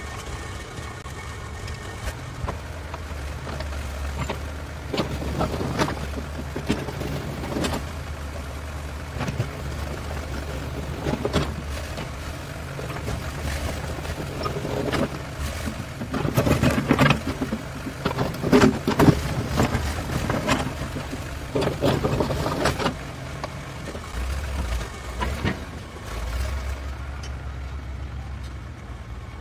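Backhoe loader's diesel engine running steadily, with a long run of knocks and clatter from the backhoe arm and bucket at work, densest and loudest in the middle. The engine note changes near the end as the machine moves off.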